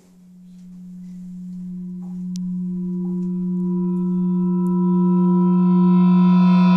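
A single steady, held tone with overtones swells from faint to loud, growing brighter as it builds. It is a dramatic build-up sound effect for a tense confrontation.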